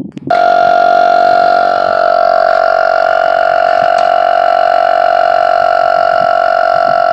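Portable tire air inflator's compressor switching on a moment in and running steadily with an even, high whine, refilling a freshly plugged car tire.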